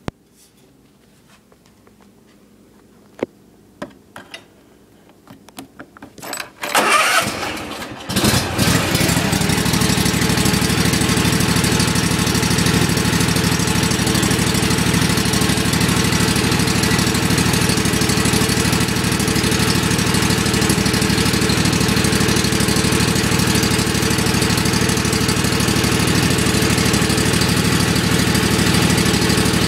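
A few clicks, then the starter of a Toro TimeCutter SS 5060 zero-turn mower's engine cranks for about a second and a half on a cold start. The engine catches about eight seconds in and runs steadily.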